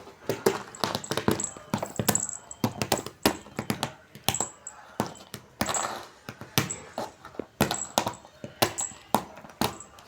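Rapid, irregular clicking and tapping, a few sharp strokes a second, with a short rustling burst partway through.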